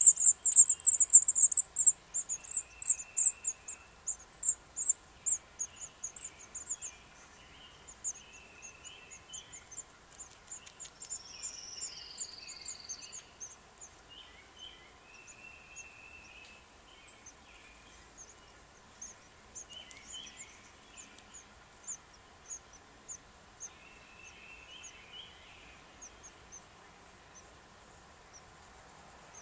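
House finch nestlings begging with a rapid series of very high-pitched cheeps as the male feeds them, loud for the first couple of seconds and then thinning to scattered faint peeps. Fainter bird chirps and twitters sound in the background.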